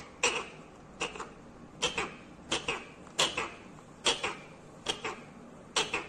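Green parakeet making a series of short, sharp calls, about one every second, some in quick pairs.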